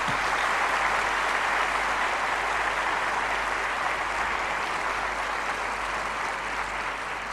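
Audience applauding: a hall full of people clapping in a steady patter that eases off slightly toward the end.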